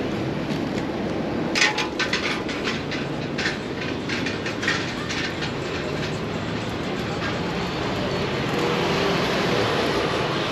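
Elevated subway train clattering on its tracks: a quick run of sharp metallic clacks from about one and a half to five seconds in, over a steady hum of street traffic.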